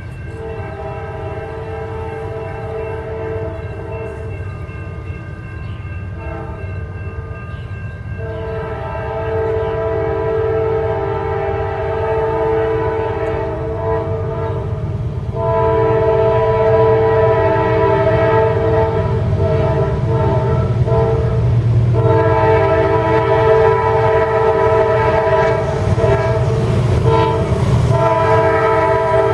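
Air horn of a GE AC44CW freight locomotive blowing a chord in a series of long blasts with short breaks, getting louder as the train approaches, over the low rumble of the passing train.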